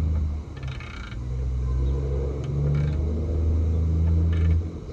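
Heavy diesel truck engine passing, a deep steady rumble whose pitch steps up and down, the kind of low drone of trucks engine braking. A few faint clinks sound over it.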